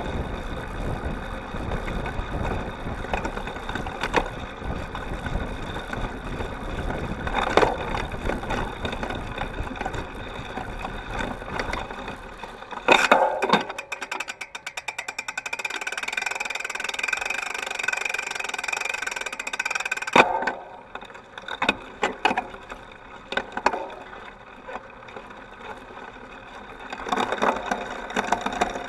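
Cyclocross bike riding over bumpy grass and dirt, heard from a camera on the seat stay: a steady rumble of tyres and rattling drivetrain with occasional sharp knocks over bumps. About halfway through the rumble drops away for several seconds as the bike crosses sand, leaving a smoother hiss, before the knocking rattle returns.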